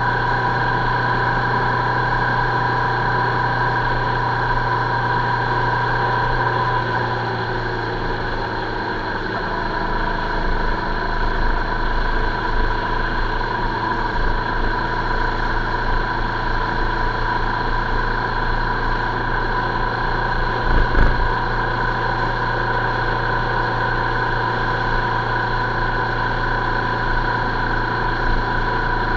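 A vehicle running steadily along a road, heard from a camera mounted on it: a constant drone with a steady whine, easing a little about seven seconds in. A short thump comes about twenty-one seconds in.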